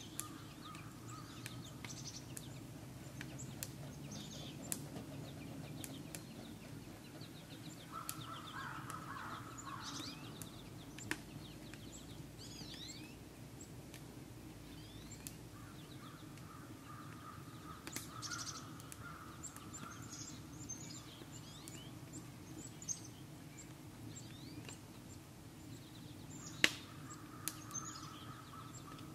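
Wood fire under a pan of boiling maple sap: a steady low rumble with scattered sharp pops and crackles, one louder crack near the end. Birds chirp throughout.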